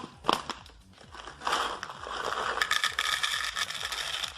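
Green coffee beans being poured from a bag into a small tin, a dense rattle of many small hard beans hitting the tin and each other that starts about a second and a half in, after a single click.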